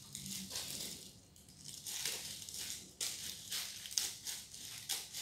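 Clear plastic gloves crinkling and leafy greens rustling as hands pick through and strip a bunch of herbs, in irregular scrunching strokes about every second.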